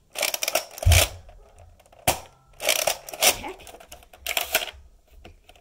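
Nerf Rival foam-ball blaster being cocked and fired: several quick clusters of hard plastic clacks and rattles, with a low thud about a second in.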